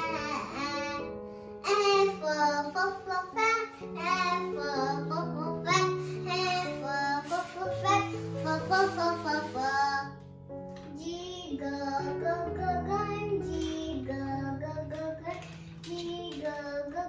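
A child's voice singing a song over backing music, with a line of held bass notes under the voice.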